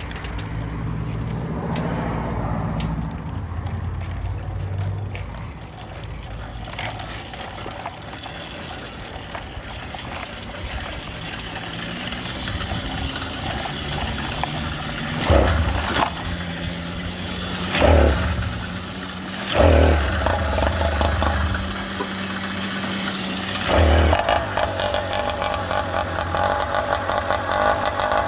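Motorized bicycle's small engine catching with four loud sputtering bursts over the middle of the stretch, then running steadily near the end.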